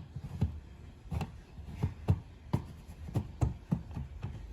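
Hands handling a plastic smoke alarm and its mounting bracket during installation: irregular light clicks, taps and scraping, about two a second.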